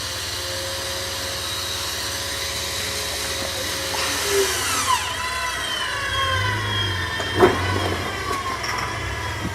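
Jeep Wrangler TJ working up a rock obstacle: a steady engine drone with a mechanical whine that glides down and wavers in pitch during the second half, and a sharp knock about seven and a half seconds in.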